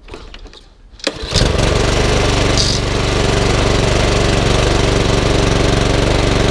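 Honda four-stroke engine on a rotary lawnmower, pull-started: a couple of clicks from the pull, then it catches about a second in and runs steadily.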